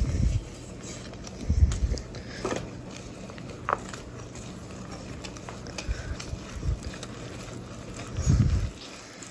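Wire whisk stirring thick brownie batter in a stainless steel bowl, a wet scraping and squishing with light clicks of the wires. A few dull thumps come now and then, the strongest about eight seconds in.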